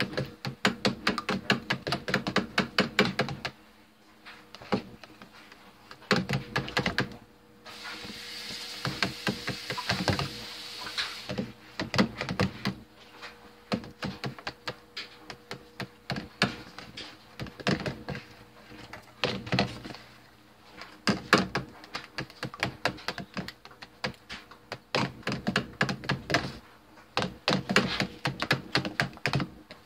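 Metal spoon beating egg batter in a plastic container, rattling and knocking against the sides several times a second in quick runs with short pauses. About eight seconds in there are a few seconds of steady hiss.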